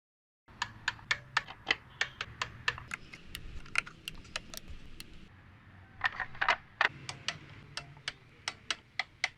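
Honda Accord engine running with a low hum and a sharp, uneven clicking knock about three times a second. This is the knock the owner traced to carbon build-up. The clicks fade for a moment around the middle, then return.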